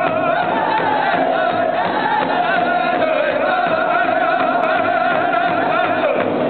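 Powwow drum group singing together in high voices over a steady, even beat on a big hide drum, struck in unison by several singers with padded beaters.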